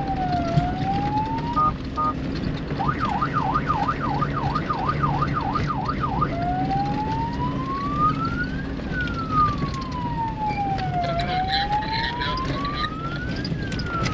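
Electronic vehicle siren on the pre-race course-check off-road car, warning that the vehicle is coming through. It sweeps slowly up and down, gives a short two-tone blip, switches to a fast yelp of about three cycles a second for some three seconds, then goes back to the slow rise and fall. The engine runs steadily underneath.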